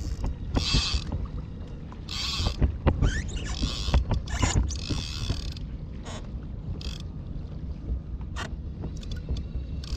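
Fishing reel under heavy load from a large hooked meagre (corvina): the drag buzzes out in repeated short bursts as the fish takes line, over a steady low rumble.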